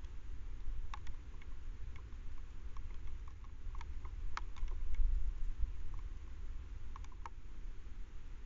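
Red fox chewing bait food, giving irregular sharp crunching clicks over a low rumble.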